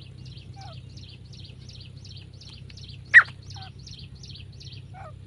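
Female grey francolin calling: one loud, sharp, falling note about three seconds in, with a few softer falling notes around it. Underneath runs a steady series of high chirps, about three a second, over a low steady hum.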